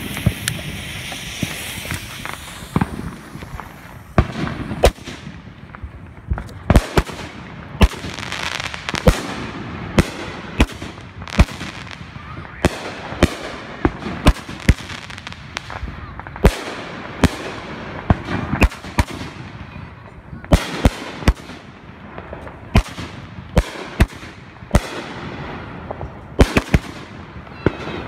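Consumer aerial firework cakes firing a finale barrage: a fast series of sharp bangs, roughly one or two a second, over a continuous hiss.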